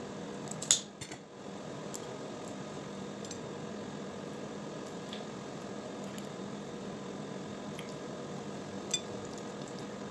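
Kitchen scissors cutting through a cooked crab's shell with one sharp snap about a second in, then scattered small clicks and cracks as the shell is picked apart by hand, with a second sharp crack near the end. A steady low hum runs underneath.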